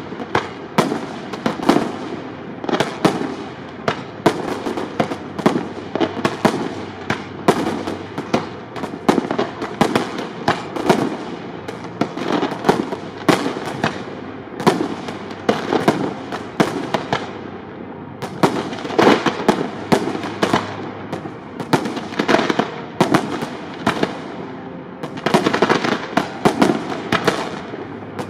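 Aerial fireworks display: shells bursting in a rapid, irregular string of sharp bangs, several a second, with no let-up.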